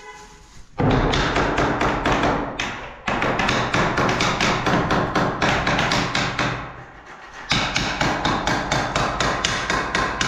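Rapid hammering on a concrete block wall, several sharp blows a second, chipping away old plaster and mortar. The hammering pauses briefly about three seconds in and again around seven seconds.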